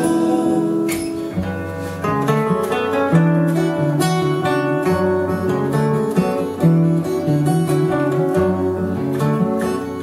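Two acoustic guitars, a Taylor and a Guild, playing a picked instrumental passage together. A held sung note ends about a second in.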